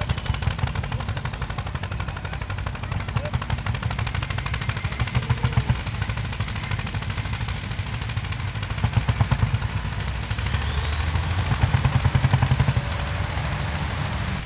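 Tractor diesel engine running with a rapid, even chugging beat that swells louder twice, briefly around the middle and longer near the end. A thin high whine rises about ten seconds in and then holds steady.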